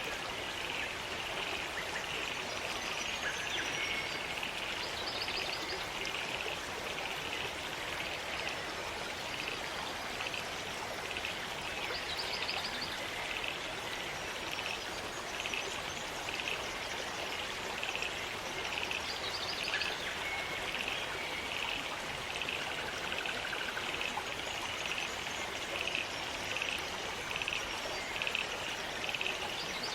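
Rainforest stream running over rocks with a steady rush of water. Over it comes a steady train of short chirps about once a second, and a brief high bird trill every several seconds.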